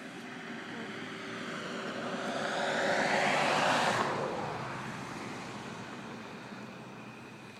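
A vehicle passing by: it grows louder to a peak about three and a half seconds in, then fades away.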